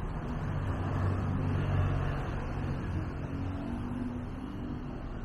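Street traffic: the steady running of a passing motor vehicle over general road noise, easing off slightly toward the end.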